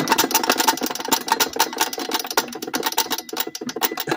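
Small lawnmower engine with a cracked block being cranked over, popping and sputtering in rapid, uneven firings without settling into a run.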